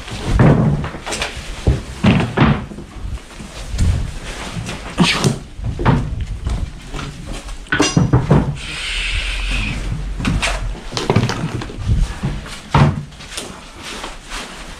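Irregular wooden knocks and thumps as mud-caked, flood-damaged floorboards are pulled up and handled, mixed with the rustle of plastic debris sacks. A steadier rough rustling runs for about a second and a half a little past the middle.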